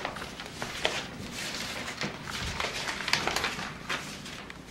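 Clothing rustle with scattered clicks and crackles close to the microphone, as people get up from their seats and one leans in to handle the camera.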